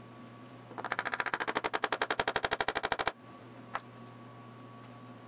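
A fast, even run of sharp taps, about a dozen a second for a little over two seconds, starting about a second in, as tiny wooden inlay pieces are knocked down into their recesses. A faint steady hum lies under the rest, with one lone click after the taps stop.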